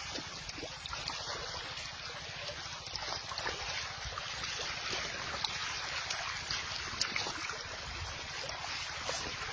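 Water splashing and trickling, with many small irregular splashes, and wind on the microphone.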